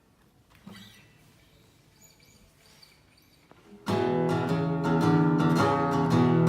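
Morris W-25 steel-string acoustic guitar being played, starting suddenly a little over halfway in, with chords ringing out over repeated strokes. Before that, only a faint tap or two of handling.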